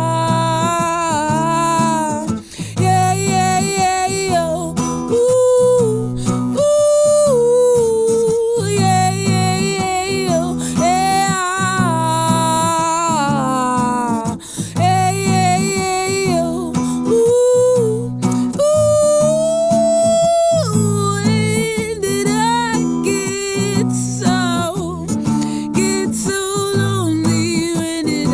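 Guitar-accompanied song: a high voice sings a wordless melody over steady guitar chords.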